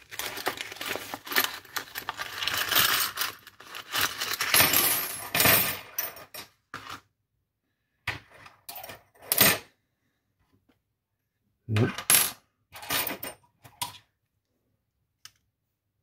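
A set of steel Allen keys clattering together onto a tabletop for the first several seconds, then a few separate short metal clinks as single keys are picked out and handled.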